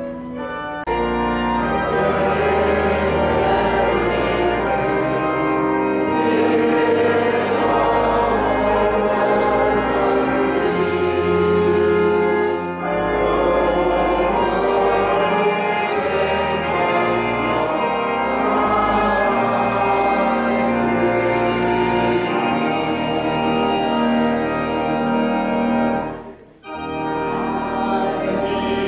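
Organ music: slow, held chords over low sustained bass notes, breaking off briefly near the end.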